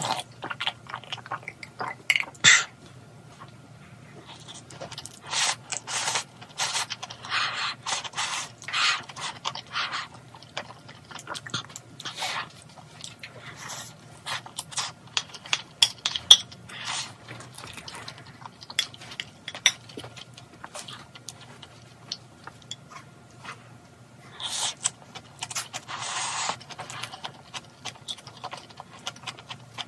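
Close-up eating sounds: chewing and slurping of ramyeon porridge, with a spoon clicking and scraping against a small ceramic bowl, and sips from a glass of ice water near the start.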